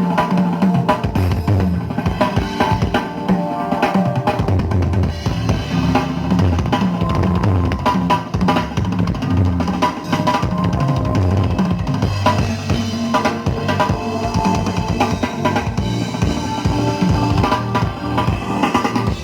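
Loud, drum-heavy music with a deep, moving bass line and constant kick and snare beats, played through a large parade sound system during a sound check.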